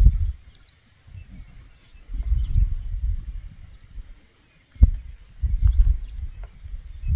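Gusts of wind buffeting the microphone in low rumbles that come and go every couple of seconds, with small birds chirping in short high notes over them. One sharp knock a little before five seconds in.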